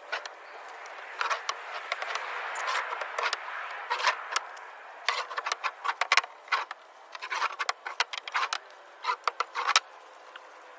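Irregular knocks, clicks and scraping from 2x4 lumber being handled and turned to check for crown. A scraping hiss runs under the first few seconds, and scattered sharp clicks follow through the rest.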